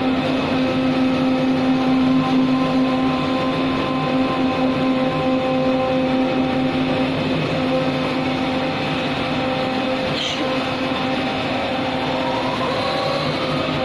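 CNC knife cutting machine running: a steady machine hum with several steady tones on top, a brief higher sound about ten seconds in, and a tone rising in pitch near the end as the machine moves.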